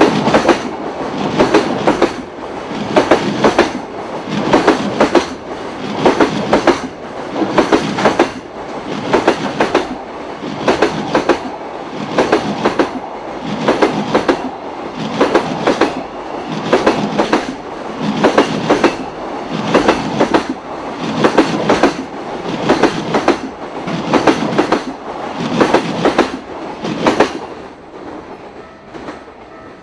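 Container wagons of a long freight train rolling over rail joints: loud groups of wheel clacks about once a second, dying away near the end as the last wagon clears.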